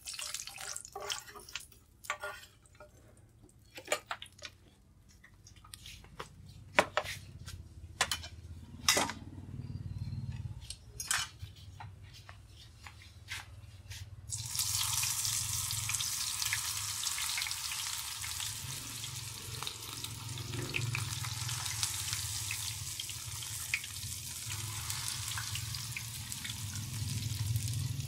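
Scattered light clicks and taps of a metal skimmer and chopsticks against the pan and plate, then, about halfway through, battered breadfruit slices go into hot oil and a loud, steady sizzle of deep frying starts suddenly and keeps on.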